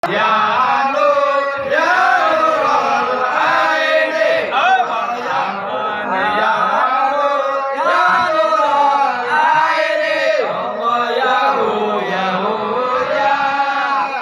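Men chanting an Islamic devotional chant (sholawat) in unison, led by voices singing into handheld microphones, the melody rising and falling in long sung phrases.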